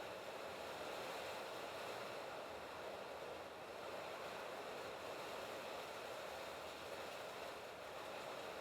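Steady rain falling on a sheet-metal roof, an even, continuous rush with no single drops or knocks standing out.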